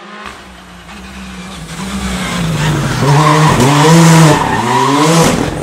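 Hyundai i20 R5 rally car's turbocharged four-cylinder engine at speed, growing louder as it comes close and passes through a bend. The revs swing up and down quickly several times. It is loudest about four seconds in, then cuts off abruptly near the end.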